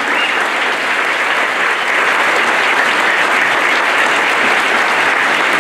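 Audience applauding steadily after a song, a dense even clapping.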